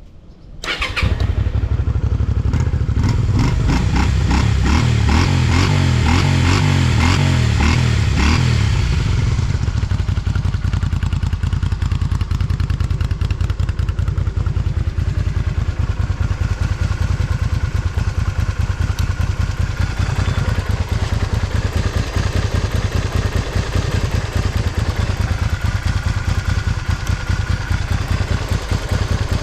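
Honda Magna 250's V-twin engine starting from cold about a second in, running at raised, varying revs for several seconds, then settling into a steady idle. It runs cleanly, with no abnormal noise.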